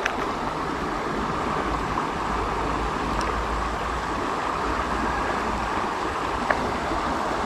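Steady rushing of a shallow, rocky river, with a few faint clicks.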